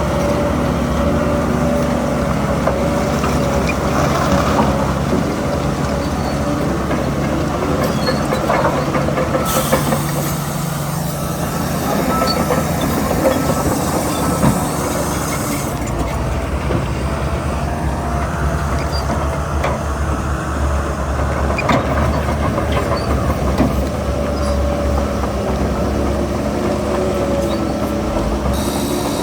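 Heavy diesel earthmoving machinery, a crawler bulldozer and dump trucks, running steadily with metallic clanking. A high hiss joins about ten seconds in and lasts several seconds.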